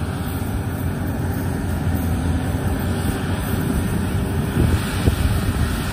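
Yanmar YH850 combine harvester running steadily as it cuts and threshes rice: a continuous engine and machinery drone.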